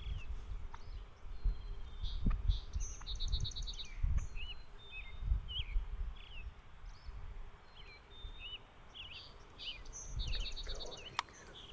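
Several small songbirds chirping, with short repeated trills, over a low rumble of wind on the microphone.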